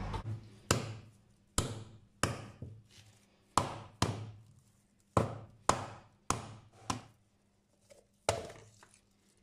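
A whole oven-baked coconut being struck hard, about ten sharp knocks at uneven intervals, each with a short ring, to crack its shell so the husk comes away.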